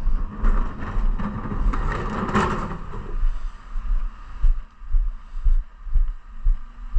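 Footsteps of a person walking on a paved pavement, picked up as dull low thuds through a body-worn camera, about two steps a second, over a faint steady hum. A louder rushing noise fills the first few seconds and fades about three seconds in.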